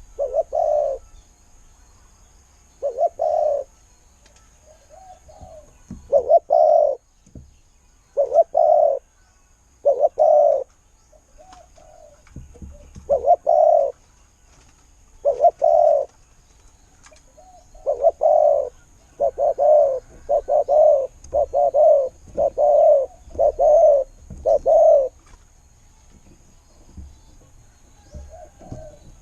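Spotted dove cooing repeatedly in short deep phrases, with a quicker run of coos from about 18 s to 25 s in: the call of a decoy dove used to lure wild doves.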